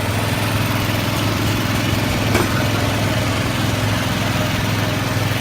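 Small go-kart engine running at a steady, unchanging pitch.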